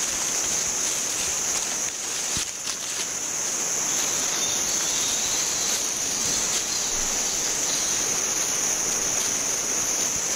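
Forest ambience: insects chirring steadily at a high pitch over a constant hiss, with a few faint clicks about two and a half seconds in.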